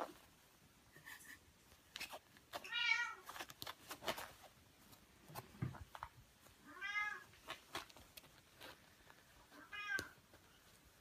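Very young Scottish Fold kitten mewing three times: short, high-pitched cries, each rising and falling in pitch. Light clicks and rustles come between the cries.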